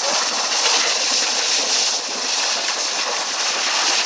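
Water from a burst water main gushing up out of the road with a steady rushing hiss.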